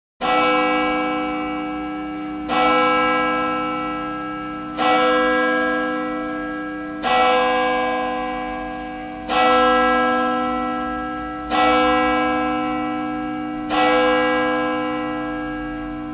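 A single church bell tolling slowly: seven strikes about two and a quarter seconds apart, each ringing on and fading before the next.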